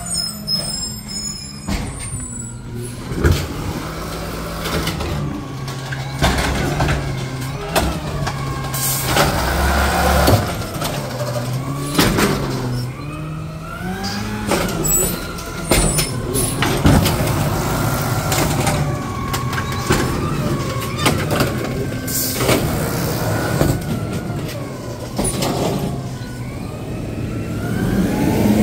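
Natural-gas garbage truck running at the curb while collecting recycling carts. Its engine revs up and down, with a whine that rises and falls, and there are several sharp knocks and bangs along the way.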